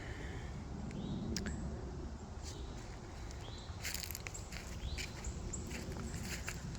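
Outdoor ambience while walking: a steady low rumble of wind on the microphone, a few scattered rustles or steps, and several short, rising bird chirps.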